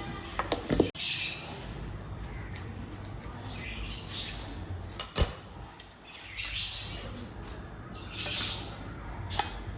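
Birds chirping in short spells over a low steady background. A few light clicks come near the start and a sharp knock about five seconds in.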